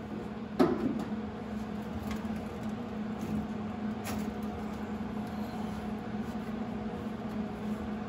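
A steady machine hum, with a sharp knock about half a second in and a lighter knock around four seconds in, as tools and sheet metal are handled.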